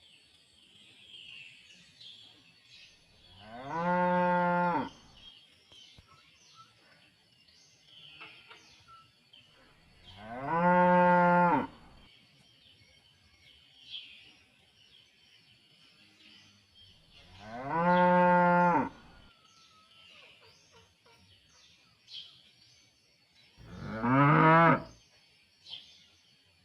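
Cattle mooing: four long, low moos about seven seconds apart, each lasting one to two seconds, the last one bending up and down in pitch.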